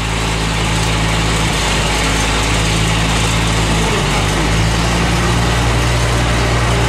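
An engine idling steadily close by, its pitch shifting slightly about a second and a half in and again around four seconds.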